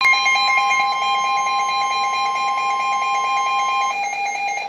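Emergency Alert System attention signal: a loud, steady two-tone alert tone. The higher tone drops out shortly before the end, leaving the lower one alone for a moment.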